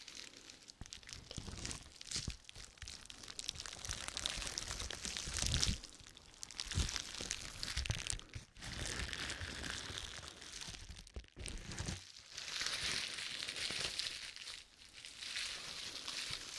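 Bubble wrap crinkled and rustled close to the microphone, a dense crackling in long stretches broken by brief pauses.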